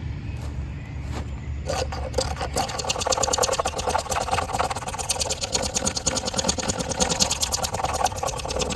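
Spine of a Mora Companion stainless knife scraping fatwood off a wooden bearing block in quick, rhythmic strokes, starting about two seconds in. These are the scrapings gathered as tinder.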